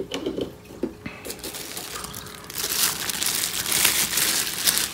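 Clear plastic wrap crinkling as a film-wrapped plastic food container is handled, after a few light clicks in the first second. The crinkling grows louder about two and a half seconds in.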